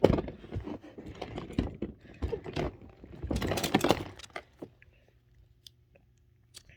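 Small plastic fidget toys clattering and clicking as they are handled and rummaged through. The clatter is busiest for the first four seconds or so, then thins to a few scattered clicks.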